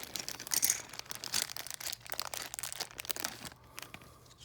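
Packaging crinkling and rustling as it is handled, irregular crackles that die away about three and a half seconds in.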